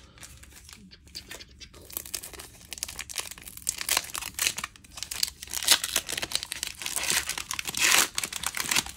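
Crinkling and tearing of a trading-card pack's wrapper while the cards are handled: a dense run of crackles, sparse at first and thicker and louder from about two seconds in.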